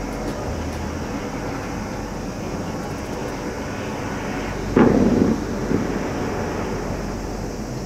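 Distant fireworks: one low boom a little under five seconds in, with a fainter second one just after, over a steady hum of city noise.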